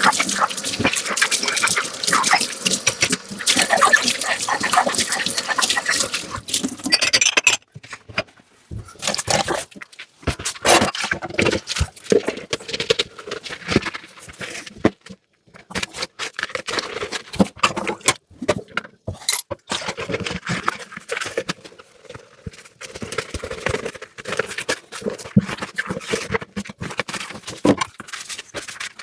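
Dishes being washed by hand in a sink: tap water running steadily with dishes clinking, cutting off about seven seconds in, then irregular scrubbing and clinks of dishes.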